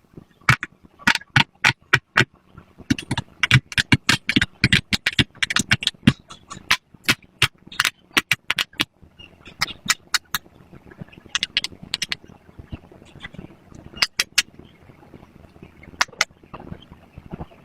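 Pop-it fidget toy bubbles being pressed one after another: a fast, irregular run of sharp pops for about nine seconds, then scattered pops with gaps between them.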